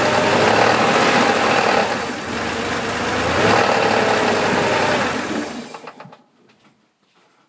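Porsche 3.2 air-cooled flat-six engine running with small changes in speed, then switched off about five and a half seconds in and running down to a stop.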